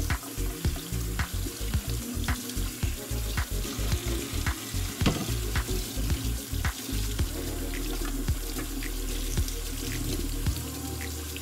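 Kitchen tap running steadily into a stainless steel sink while curly kale leaves are rinsed and handled under the stream. Background music plays underneath.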